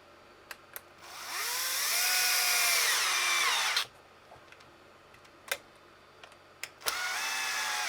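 Cordless power driver running screws, twice: the motor whines up in pitch, holds, then winds down, and starts again about seven seconds in. Small clicks of handled parts between the runs.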